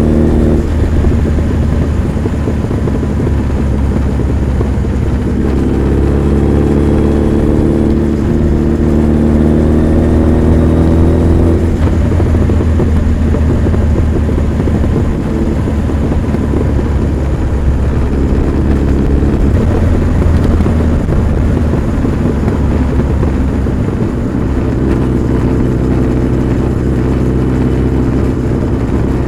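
Honda CB1300 Super Bol d'Or's inline-four engine and exhaust while riding. The engine climbs in pitch twice under acceleration in the first dozen seconds, then runs steadier.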